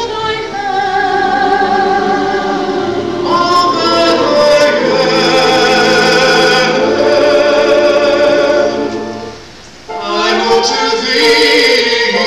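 Mixed church choir singing, dropping away briefly about nine and a half seconds in and then coming back in.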